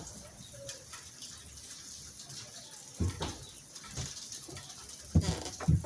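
A few knocks and thumps over faint background noise: one about three seconds in, then two louder ones near the end.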